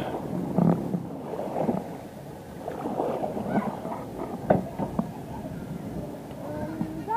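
Wooden paddle strokes in the water beside a small wooden boat: an uneven sloshing and splashing, with a sharp knock about four and a half seconds in.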